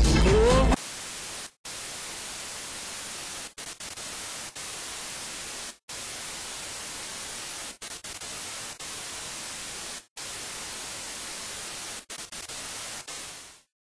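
Electronic dance music cuts off under a second in, then a steady, even hiss of static follows, broken by several brief dropouts, most clearly three, and fading out just before the end.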